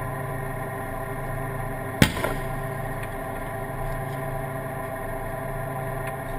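A tank's diesel engine running with a steady drone, and one sharp bang about two seconds in.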